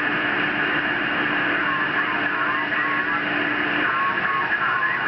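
Single-sideband receiver static on CB channel 38 LSB through a Kenwood TS-890: steady hiss with faint, garbled distant voices from skip stations, and a steady low tone that cuts off about four seconds in.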